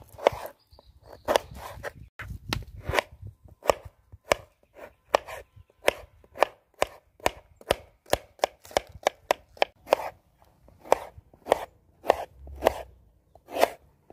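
Kitchen knife slicing a fresh young bamboo shoot into rings on a wooden cutting board, each cut ending in a sharp knock on the board, in a steady rhythm of about two cuts a second.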